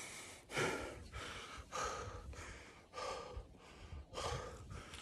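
A man breathing hard, four heavy gasping breaths a little over a second apart, from the strain of dragging a whitetail deer carcass.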